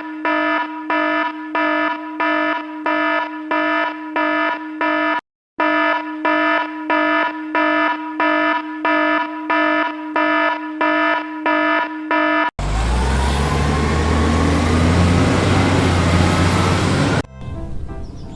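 An electronic alarm beeping about twice a second, with one short break, for about twelve seconds. It cuts off into about four seconds of loud rushing noise with a low rumble under it, then birds chirping near the end.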